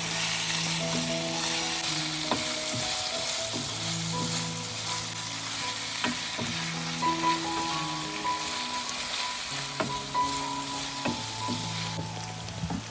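Food frying in a hot pan, with a steady sizzle and a few light knocks of a utensil being stirred against the pan. Soft background music with long held notes plays underneath.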